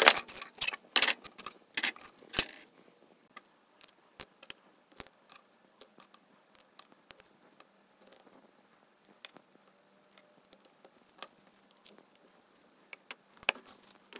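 Light metallic clinks and taps of small metal parts being handled, with tweezers picking terminals out of a small glass jar. The clinks come as a quick flurry in the first couple of seconds, then as scattered single clicks.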